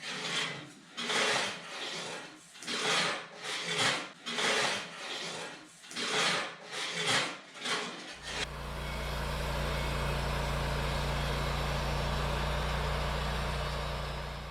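Rhythmic rasping strokes of wood being worked, about one a second, for the first eight seconds. Then, after a sudden change, a Wood-Mizer LT40 band sawmill running steadily with a low hum.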